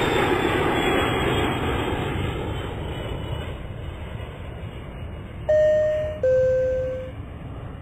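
A broad rushing rumble of airplane engine noise that slowly fades away. About five and a half seconds in, a two-note descending chime sounds, high then low.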